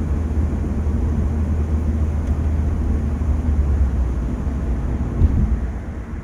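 Mercedes-AMG A35's turbocharged 2.0-litre four-cylinder running at a steady low drone with road noise, no revving up or down. One sharp thump a little after five seconds in, then the sound begins to fade near the end.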